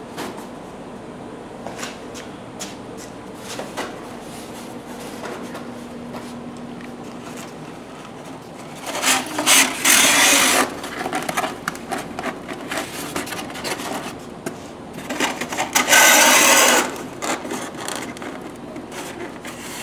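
Expanded polystyrene foam containers rubbing and scraping against each other as they are pressed down and seated in a stack. A few light knocks come first, then two loud stretches of scraping, about nine and sixteen seconds in.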